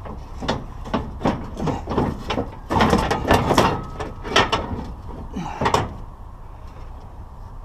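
A quick irregular run of knocks and clatters as objects are handled and shifted about, thickest around three to four seconds in, then dying down.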